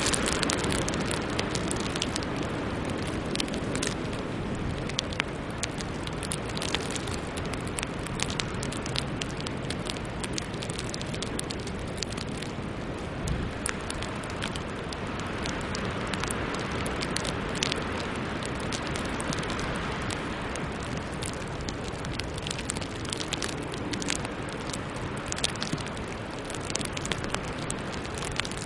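Sleet and freezing rain pattering on glass: a steady rush full of scattered sharp ticks as ice pellets and drops strike.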